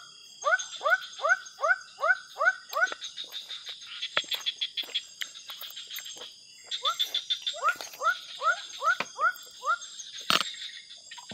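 A frog calling at night in two bouts of quick, short rising notes, about three a second. The calls sit over a steady high buzz of insects, and there is one sharp click near the end.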